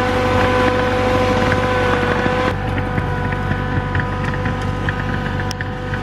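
Tractor engine running steadily under load while pulling a drain tile plow through the soil, with a steady tone in it that drops in level about halfway through.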